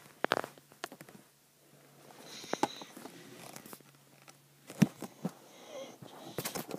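Handling noise: scattered clicks and knocks with faint rustling, as a handheld camera is moved about a room. The loudest knock is a little before five seconds in, with a quick cluster of them near the end.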